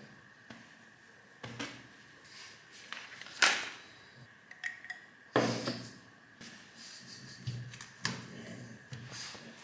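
Things being set down on a desk, an aluminium foil food tray, a fork and a glass, make a few separate knocks and clatters. The sharpest comes about three and a half seconds in, with others about five and a half and eight seconds in.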